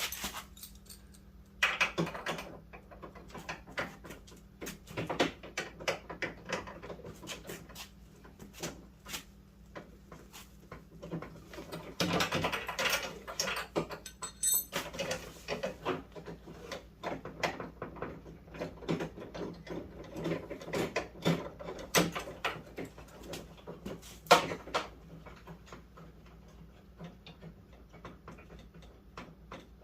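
Hand ratchet clicking in short runs, with scattered metallic clicks and knocks from tools and door hardware, as the bolts holding a Fox-body Mustang's door handle are worked loose. One louder knock comes near the end.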